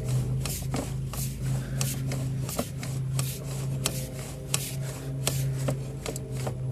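Sewer inspection camera rig running with a steady low hum, overlaid by irregular scraping clicks about twice a second.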